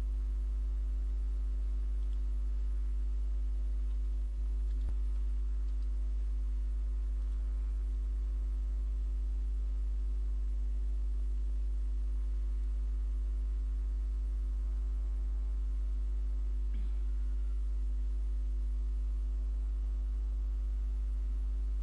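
Steady low electrical hum with a stack of even overtones, the recording's noise floor, with one faint click about five seconds in.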